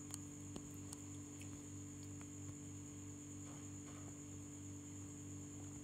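Steady electrical mains hum with a faint high whine above it, and a few faint ticks in the first second.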